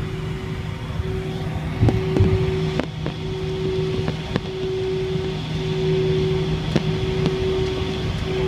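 Airliner engines heard from inside the cabin as the plane rolls along the runway for take-off: a steady hum with a low drone beneath it, broken by a few short knocks from the wheels and airframe.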